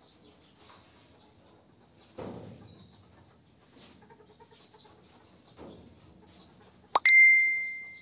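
A single sharp metallic ding near the end, ringing on one clear tone for about a second before dying away. Earlier come two dull thumps and faint sounds from the pigeons in the aviary.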